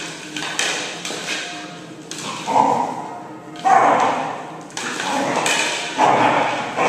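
A hollow hard-plastic Jolly Egg dog toy knocking and scraping on a vinyl floor as a dog pushes and mouths it: several sharp knocks, some with a brief hollow ring.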